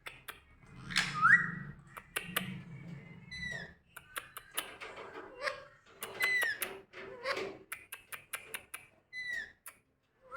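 Indian ringneck parrot giving short whistled notes that slide down in pitch, one rising whistle about a second in, among many sharp clicks.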